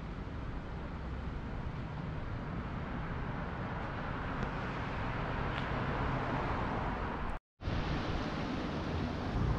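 City street ambience: steady road-traffic noise that grows louder through the middle, broken by an abrupt silent gap about seven and a half seconds in.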